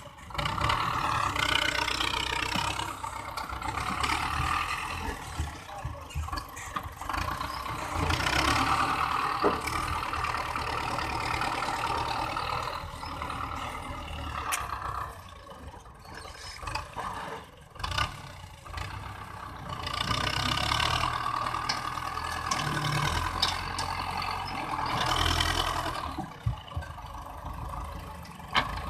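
Diesel engine of a 510 tractor with a front-end loader, running and revving up in repeated surges as the loader scoops and lifts sand, then dropping back between them.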